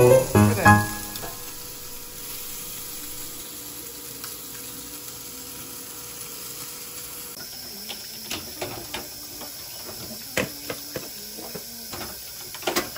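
The tail of a piece of music, then a faint steady hiss. About seven seconds in, water starts running from a kitchen faucet sprayer into a stainless steel sink, with dishes knocking and clattering irregularly as they are washed.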